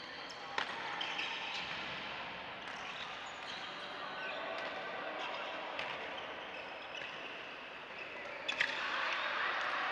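Badminton rackets striking shuttlecocks: sharp smacks at irregular intervals, roughly every second or so, the loudest cluster near the end, over the echoing hum of a large sports hall. Short high squeaks from court shoes come through between the hits.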